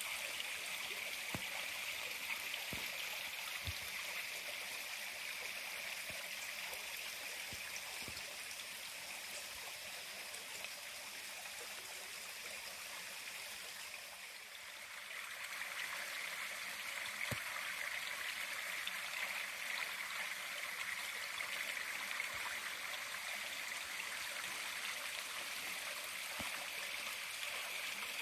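Steady rushing of a forest stream, a continuous hiss of flowing water that fades briefly about halfway through and then comes back, with a few soft thumps of footsteps on the trail.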